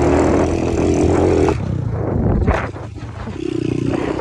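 Single-cylinder four-stroke pit bike engine running at a steady pitch, easing off about a second and a half in with a short thump in the lull, then coming back on about three seconds in.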